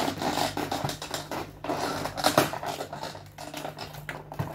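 Toy packaging being handled as a doll is worked free: irregular rustling, crinkling and small clicks of plastic and cardboard, over a faint steady hum.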